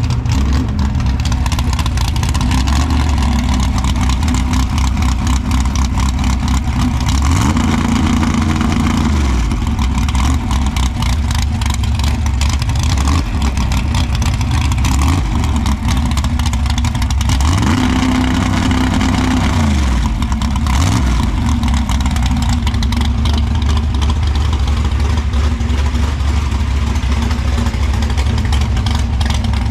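A Chevy S10 drag truck's V8 engine running through side-exit exhaust, steady and loud, revved up and held about seven seconds in and again about seventeen seconds in, then let back down each time.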